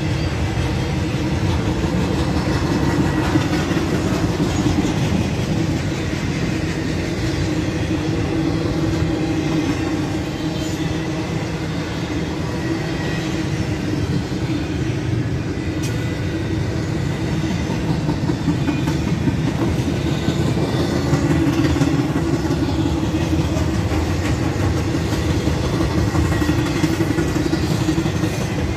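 Cars of a long intermodal freight train, double-stack container well cars and trailer flatcars, rolling past close by: a steady, loud noise of steel wheels running on the rails.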